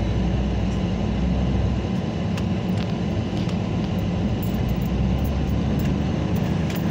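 Steady low rumble of a car's engine and tyres heard inside the cabin as it drives across a railroad crossing, with a few light knocks in the middle as the tyres go over the rails.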